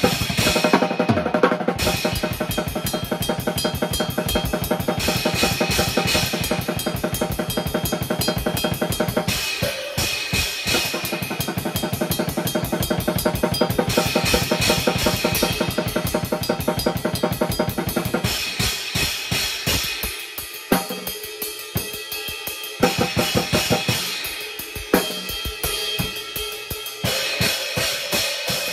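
Drum kit played in a fast, busy groove of bass drum, snare and cymbals. About two-thirds of the way through, the bass drum drops back and the playing turns sparser, with a few sharp accented hits.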